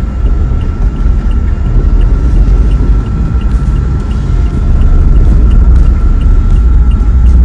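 Off-road SUV driving along a rough track, heard from inside: a loud, uneven low rumble of engine and tyres that grows louder about five seconds in. A faint steady high tone and light regular ticking, about two a second, sit above it.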